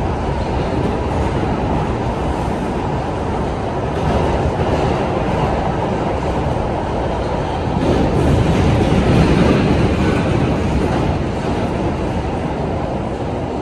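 R142 subway car running through the tunnel, heard from inside the car: a steady, loud rumble of wheels on rail and running gear that swells louder about eight seconds in, then eases.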